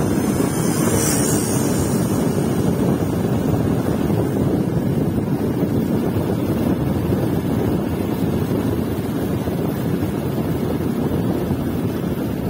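Wind buffeting the microphone of a motorcycle riding downhill, a steady low rumble, with a brief hiss about a second in.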